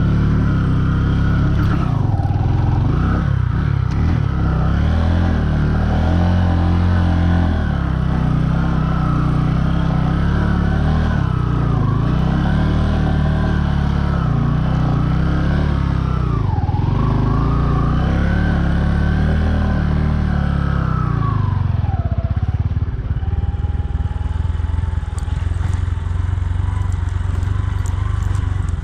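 Bajaj Boxer 150 motorcycle's single-cylinder four-stroke engine running under way, its revs rising and falling again and again. About three-quarters of the way through it settles to a lower, steadier note.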